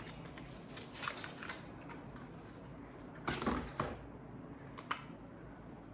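A cardboard perfume box being opened and handled: faint rustles and scrapes, a louder scrape about three and a half seconds in, and a single small click just before five seconds.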